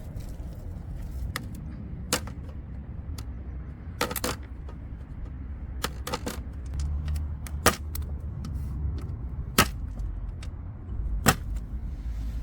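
Sharp, irregularly spaced clicks or pops, about eight of them, over a steady low rumble.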